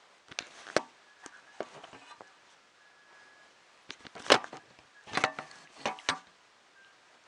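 Sharp clicks and knocks of small 3D printer kit parts and tools being handled and set down on a hard surface: a few scattered taps in the first two seconds, then a denser cluster with the loudest knock about four seconds in.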